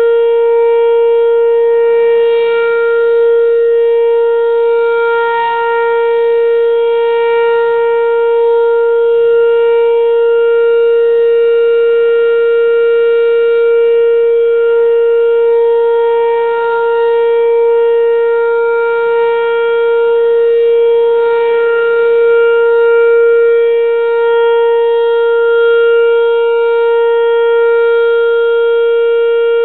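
Whelen Vortex-R electromechanical tornado siren sounding a steady tone, held at one pitch with no rise or fall. Its upper overtones swell and fade slowly as the loudness wavers a little.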